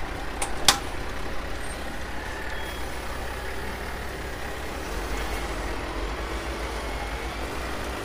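Heavy truck's diesel engine running as a tractor unit pulls a tipper semi-trailer over gravel, with two sharp clicks about half a second in.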